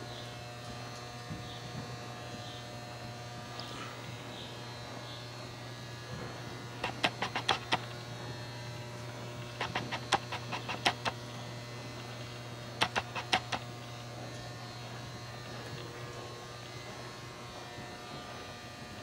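Steady low electrical hum, with three short bursts of rapid sharp clicks, about six a second, around the middle.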